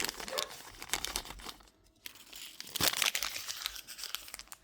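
Small plastic accessory bag crinkling and tearing as it is opened by hand, in irregular crackly bursts with a short pause partway through.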